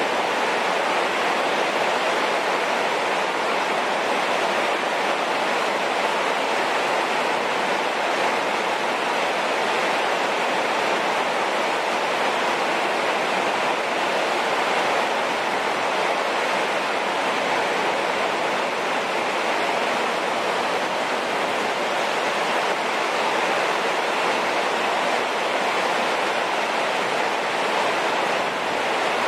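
Heavy rain falling, a steady, unbroken hiss of water.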